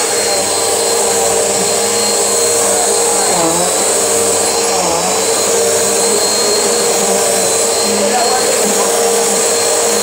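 Bissell upright bagless vacuum cleaner running steadily while it is pushed over a rug, its motor giving a constant whine over a full rush of suction noise.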